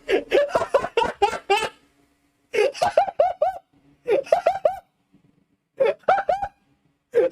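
High-pitched laughter in rapid short bursts. A continuous run of about two seconds is followed by the same quick burst of three or four laughs repeating roughly every second and a half.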